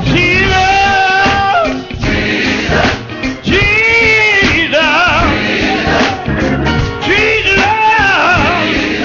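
Gospel music: a singer holds three long, drawn-out phrases with heavy vibrato over instrumental backing.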